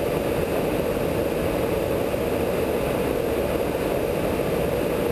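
Steady in-flight noise aboard a KC-135 tanker at the boom operator's station: an even, unbroken rush that does not change.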